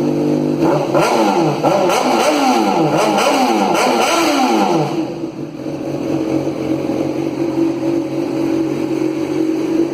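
Honda CBR 600RR's inline-four engine idling, then revved several times in quick throttle blips before settling back to idle about five seconds in. The note is loud and raspy because the exhaust muffler has been cut with a small notch.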